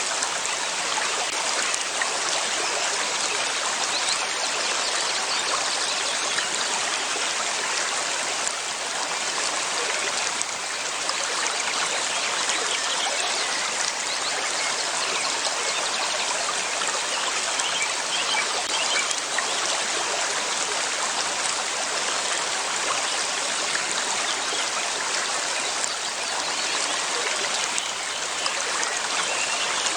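River water flowing steadily over stones, a continuous rushing and trickling with no breaks.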